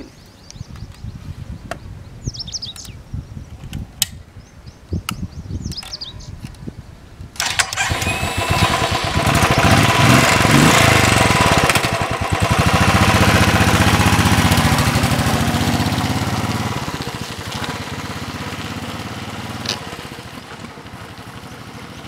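Royal Enfield Thunderbird 350X's 346 cc single-cylinder engine ticking over quietly, then about seven seconds in it revs and pulls away. It is loudest a few seconds later, rising and falling in pitch as the bike accelerates, and fades as the motorcycle rides off.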